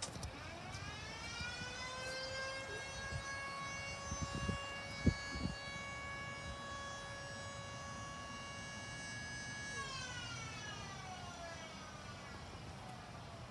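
Federal Signal Model 2 electromechanical siren winding up over a second or so to a steady wail, holding for about eight seconds, then winding down in pitch near the end. A few low thumps sound about five seconds in.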